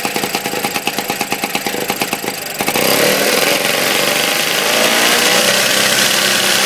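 Single-cylinder petrol engine of a 1950s Villiers-engined lawn mower, just kickstarted after two years unused, idling with an even beat of firing strokes. About two and a half seconds in it is revved up and runs faster and louder.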